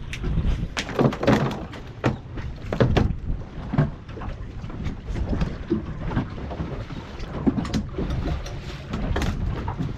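Irregular knocks and clunks on a small fishing boat's deck, over a steady low rumble of wind and water against the hull.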